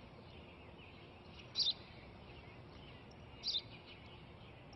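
A sparrow chirping: two short bursts of quick high notes about two seconds apart, over a faint steady background hiss.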